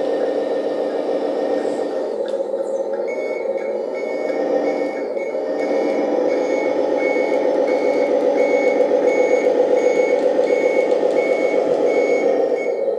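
Recorded diesel truck engine played by the sound module of a 1/14 scale RC Scania tractor truck. It runs steadily and grows louder about five or six seconds in. From about three seconds in, a reversing beeper sounds about one and a half times a second, the sign that the truck is backing up.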